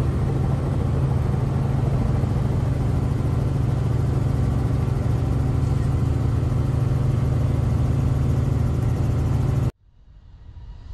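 Robinson R44 helicopter heard from inside the cabin: a steady drone of engine and rotor with a strong low hum. Near the end it cuts off abruptly, and a much quieter sound with a rising tone fades back in.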